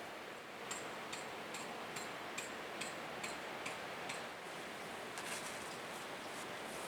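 Regular light ticking, about two and a half clicks a second, starting about a second in, over a steady hiss.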